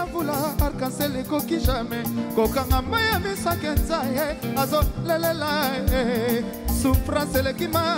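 Music with a singing voice over a steady drum beat.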